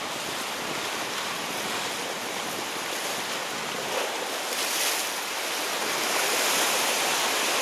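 Sea surf washing steadily, with wind buffeting the microphone; it gets slightly louder in the second half.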